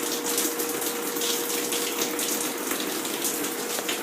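Heavy rain pouring down, with water splashing and running in a steady rush, and a faint steady hum underneath.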